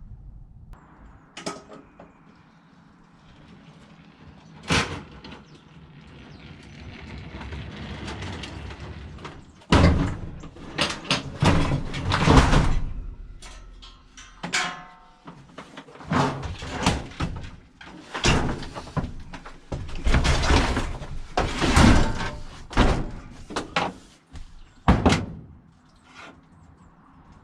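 A van's doors and loose metal being moved about in its back: scattered knocks at first, then from about ten seconds in a long run of loud bangs, clatter and scraping.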